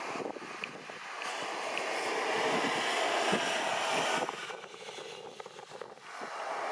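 Rushing jet-airliner noise mixed with strong wind buffeting the microphone. It swells, then falls away sharply a little past the middle.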